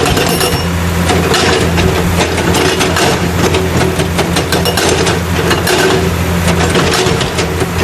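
Toy stone-crusher truck running its engine sound: a loud, steady, rattly rumble that cuts off abruptly shortly after the end.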